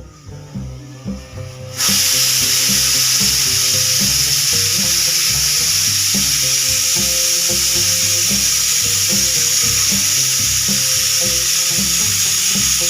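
Pressure cooker whistling: steam jets out of the weighted valve with a loud, steady hiss that starts suddenly about two seconds in and cuts off sharply near the end, the sign that the cooker has come up to pressure. Background music with a steady beat plays underneath.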